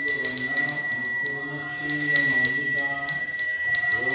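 Brass hand bell rung continuously during puja, struck several times a second so its clear ringing tone never dies away.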